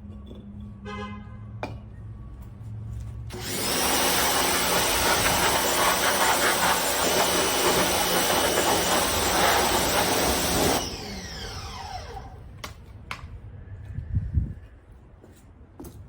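Pressure washer running and spraying for about seven seconds, a loud motor-and-pump whine under the hiss of the water jet, then stopping suddenly, the motor winding down with a falling tone.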